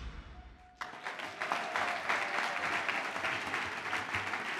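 Background music fades out, then an audience breaks into applause about a second in, with steady clapping from many hands.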